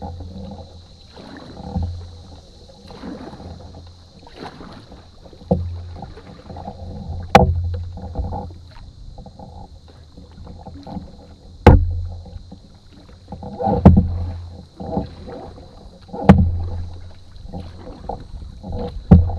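Canoe paddling: paddles dipping and pulling through the water in repeated strokes, with several loud, sharp knocks against the canoe.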